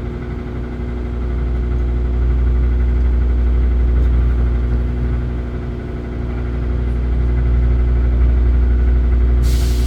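An engine running steadily at idle, a low hum that slowly swells and eases; a short hiss near the end.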